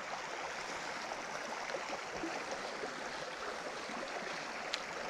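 Small creek running, a steady rushing of water, with one faint click near the end.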